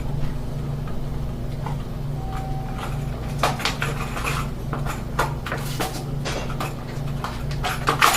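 Short clicks and knocks of lock parts being handled, coming more often from about three and a half seconds in, over a steady low hum.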